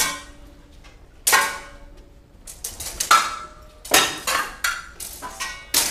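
Steel swords clashing in sword-and-shield fighting, blades striking blades and shields with sharp, ringing clangs. There is one strike at the very start and another just over a second later, then a rapid flurry of strikes from about halfway through.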